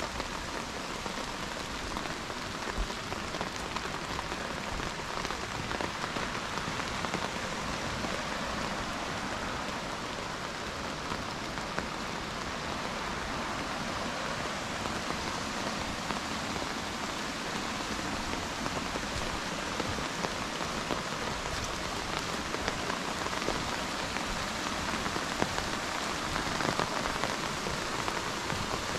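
Steady rain: an even hiss with scattered sharper drop ticks, a little louder near the end.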